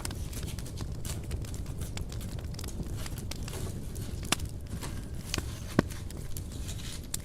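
Wood fire crackling in a fireplace: a steady low rumble of burning under irregular sharp snaps and pops, two louder pops at about four and a half and six seconds in.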